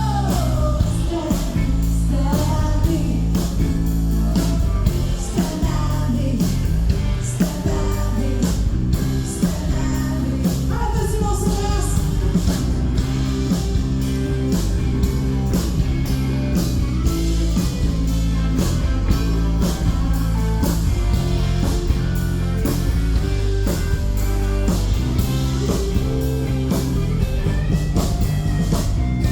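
Live country-rock band with a lead vocal, recorded on a phone: strong bass and drums under electric guitar. The singing is mostly in the first half, and the second half is more instrumental.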